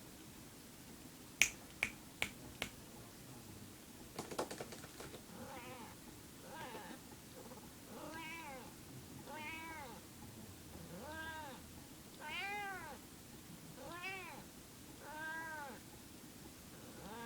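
A female cat calling over and over in short, arching meows, each rising then falling in pitch, about one every second and a half, a weird noise that the owner takes for a possible sign of heat. Four sharp clicks come shortly before, followed by a quick rattle of clicks just before the calling starts.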